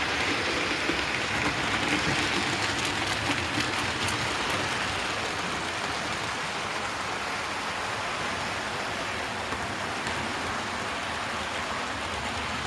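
00 gauge model trains running on the layout: a steady rushing rumble of wheels on track and small motors, easing off slightly after the first few seconds.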